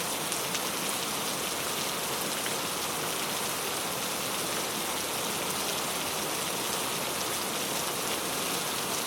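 Heavy rain falling steadily: a dense, even hiss with scattered individual drop hits.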